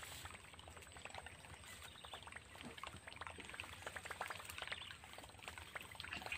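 Faint gurgling and plopping of a Whopper Plopper topwater lure being reeled across the creek surface, its spinning tail churning the water in a run of small crackling splashes.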